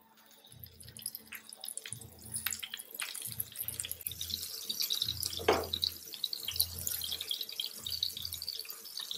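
Flour-coated Bombay duck (bombil) fillet frying in hot oil in a pan: a steady sizzle with many small crackles, building up over the first couple of seconds.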